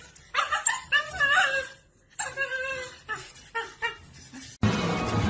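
A dog whining and yipping in high, wavering cries. Music cuts in abruptly near the end.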